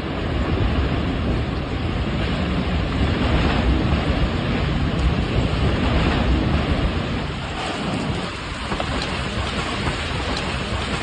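Tornado winds and driving rain: a loud, continuous rushing roar with a deep rumble underneath.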